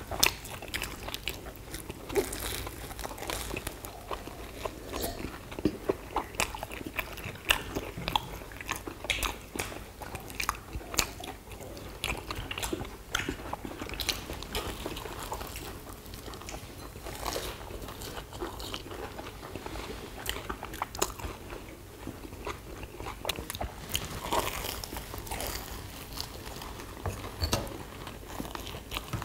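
Several people biting into and chewing sugar-coated fried twisted doughnuts (kkwabaegi), with frequent irregular small crunches and clicks.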